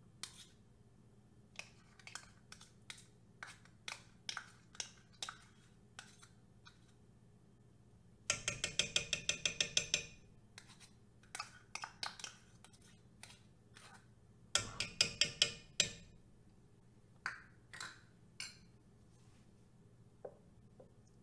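A spoon tapping and scraping yogurt out of a measuring cup into a soup pot: scattered single taps, with two spells of rapid clinking at about seven or eight a second, one about a third of the way in and one past the middle.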